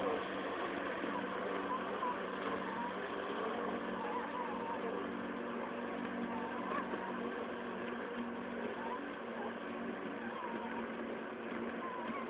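Robomower robotic lawn mower running as it drives across grass: a steady electric motor hum with a constant low tone.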